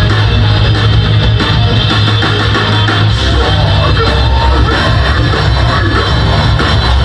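Metalcore band playing live, loud and continuous: distorted electric guitars over bass and drums.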